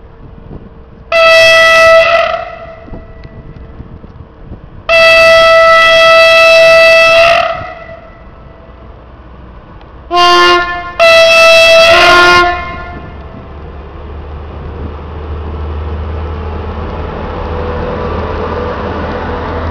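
Locomotive air horn sounding four loud blasts: a short one, a long one of about two and a half seconds, then two more close together, the last two with a lower second tone. After that comes the rising rumble of the train running past at close range.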